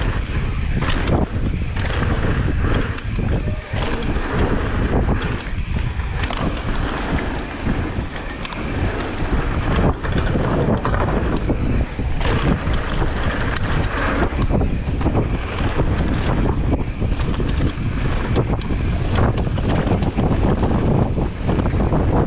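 Heavy wind buffeting a fast-moving camera's microphone, with a deep rumble and frequent short knocks and rattles throughout.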